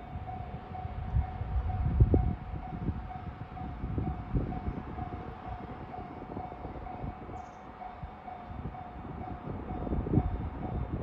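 Train passing a Japanese level crossing, with low wheel thumps at uneven intervals over a steady rumble. Over it the crossing's warning bell sounds a steady repeating tone.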